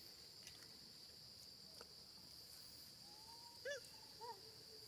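Faint steady insect drone, with a few short rising-and-falling animal calls about three to four seconds in.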